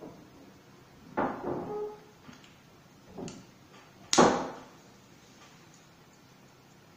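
Handheld cookie press gun being worked to pipe choux dough onto a parchment-lined baking tray: a few knocks and clunks, the loudest and sharpest about four seconds in.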